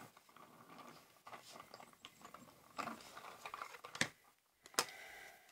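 Small hand-cranked die-cutting machine feeding a sandwich of acrylic cutting plates through its rollers, with faint crackling and creaking. Then the plastic plates are handled and clack sharply, twice, about four seconds in and just before five.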